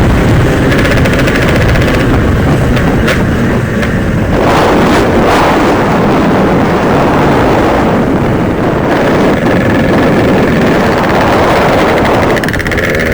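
Yamaha RX-King 135cc single-cylinder two-stroke motorcycle ridden hard at speed, its engine note buried under heavy wind rush on the microphone. Near the end it eases off and the engine's pitched note comes through clearly.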